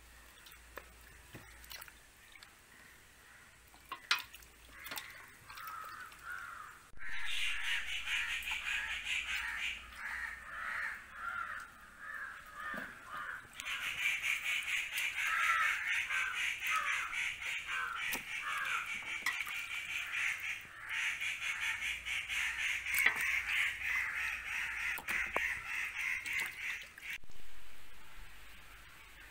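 Crows cawing over and over, a dense, harsh chorus that starts about seven seconds in and eases off near the end, with a few fainter caws before it. A few sharp knocks stand out among the calls.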